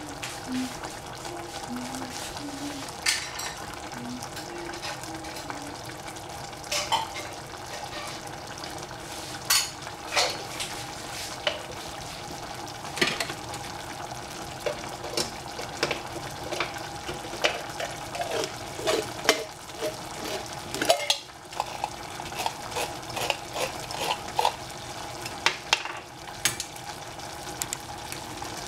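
A cooking utensil scraping and clinking irregularly against a pan of eggplant and squash cooking in coconut-milk tom yum sauce, over a steady sizzle from the pan.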